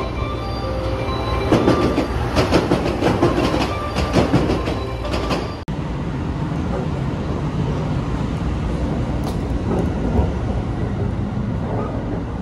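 Sunrise Izumo sleeper train noise: a steady low rumble with a stretch of rapid clicks and knocks in the first half, then after a sudden break a steadier rumble inside the carriage.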